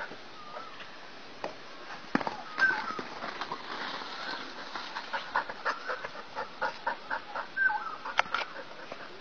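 Short bird calls and clucks repeating, with a sharp knock about two seconds in and another near the end.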